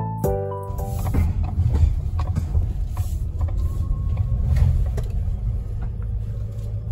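A few notes of electric-piano music end about half a second in, giving way to a car heard from inside its cabin as it moves: a low, uneven rumble with occasional light creaks and rattles.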